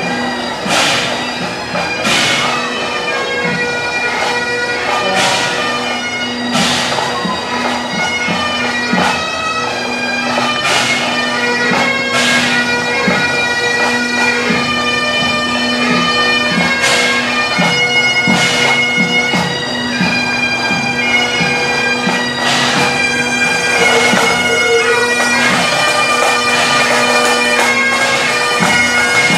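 Bagpipes playing a tune over their steady drone.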